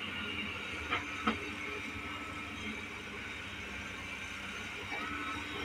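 Caterpillar 320C hydraulic excavator's diesel engine running steadily as it digs, with two sharp knocks about a second in.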